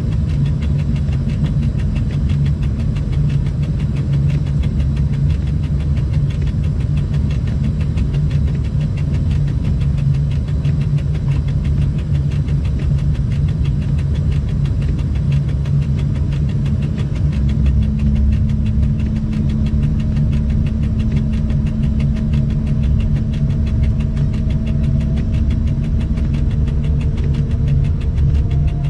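Cab noise of an electric freight locomotive under way: a steady low rumble. Past the middle a hum joins it, along with a faint whine that slowly rises in pitch.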